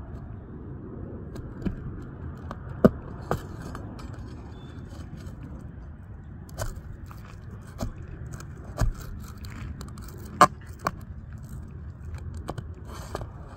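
Hand work on asphalt roof shingles: scattered scrapes and sharp taps, the two loudest about 3 seconds and 10 seconds in, over a steady low rumble.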